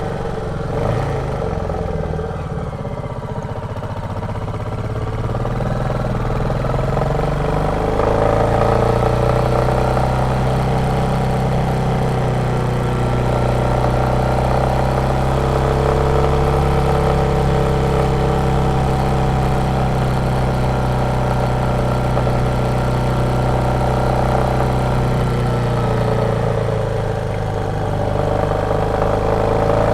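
Royal Enfield Meteor 350's single-cylinder engine running on the move. The note is lower for the first few seconds, rises about seven seconds in and holds steady, then dips briefly near the end before climbing again.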